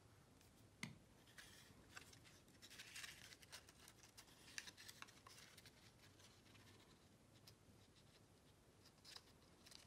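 Faint rustling and small taps of cardstock being handled and pressed together by hand, with a light knock about a second in.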